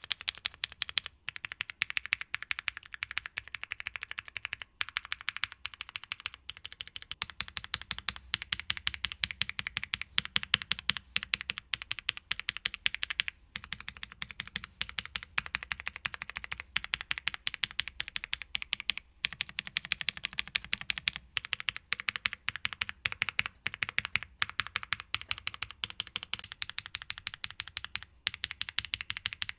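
Fast, continuous typing on a KBDfans Tofu65 2.0 mechanical keyboard with Gateron Blizzard tactile switches, a PC plate and ABS keycaps: a rapid stream of keystroke clacks broken by a few short pauses.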